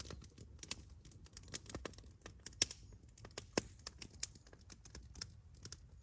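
Small wood campfire crackling: irregular quick snaps and pops, with a couple of louder cracks in the middle.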